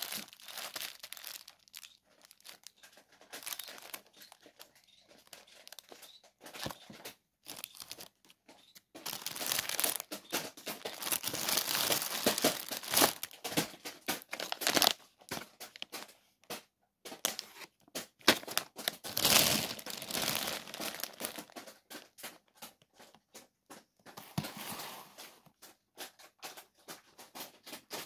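Plastic food packaging crinkling and rustling as grocery packs are handled and moved about, in irregular spells that grow louder for several seconds around the middle.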